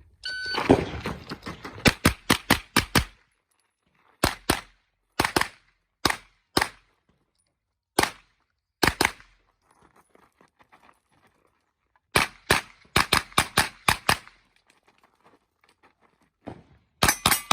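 A shot timer beeps once, then a pistol-caliber carbine fires in quick strings of shots with pauses between the strings.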